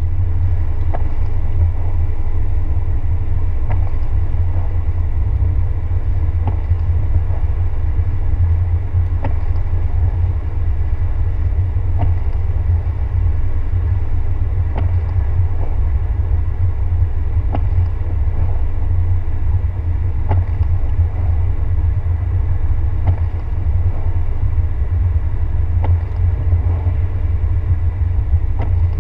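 Car driving at steady speed, heard from inside the cabin as a continuous low rumble, with faint ticks scattered every second or two.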